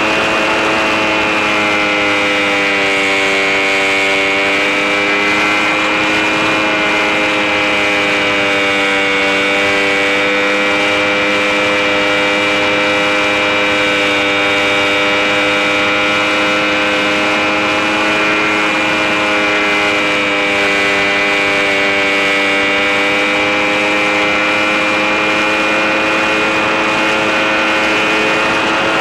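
Electric motor and propeller of an EasyGlider RC motor glider running steadily with a pitched whine. The pitch dips slightly about three seconds in and again around twenty seconds in.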